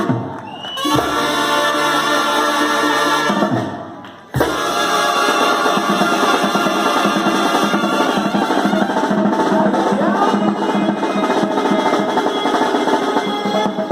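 Drum-driven party music, batucada-style percussion with held tones over it. It drops away about four seconds in and comes back in abruptly.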